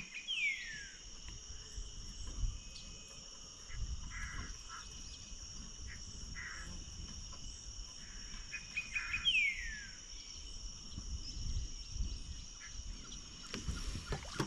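Steady high-pitched drone of insects, at two pitches, from crickets or similar. A bird's descending whistled call sounds twice, near the start and about nine seconds in. A few faint low knocks and rumbles underneath.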